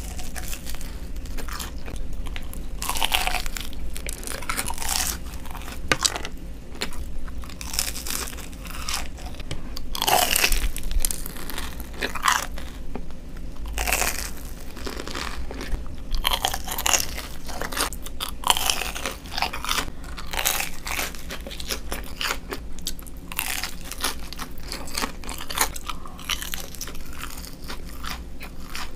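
Close-miked biting and chewing of crisp, crumb-coated fried corn dogs and crinkle-cut fries: an irregular run of sharp, dry crunches with chewing between them.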